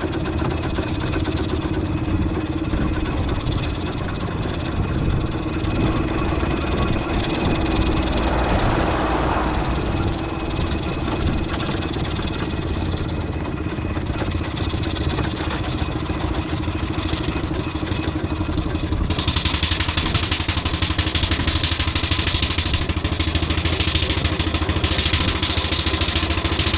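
Vehicle running steadily along a road, with a constant hum. A louder hiss comes in suddenly about two-thirds of the way through.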